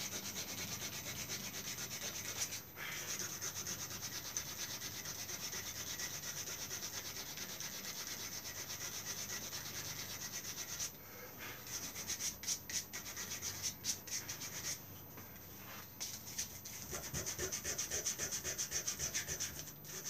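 Hand sanding of a carved wooden bird head held in a vise, smoothing out notches cut under the head. It runs as fast, even back-and-forth strokes for about eleven seconds, then slower, broken-up strokes with short pauses.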